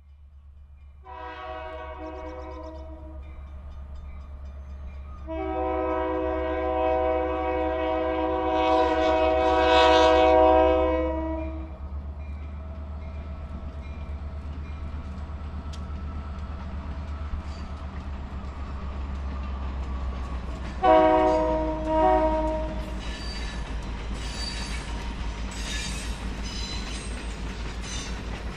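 Diesel locomotive's multi-chime air horn sounding over a steady engine rumble: one blast about a second in, a long, loud blast from about five to twelve seconds, then two short blasts about three-quarters of the way through. Near the end the passenger cars roll past with wheel clatter.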